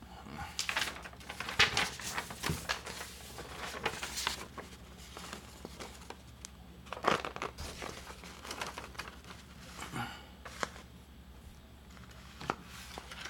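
Hands handling a plastic action figure and its soft plastic cape: irregular crinkly rustles and small clicks, busiest in the first few seconds and again about seven seconds in.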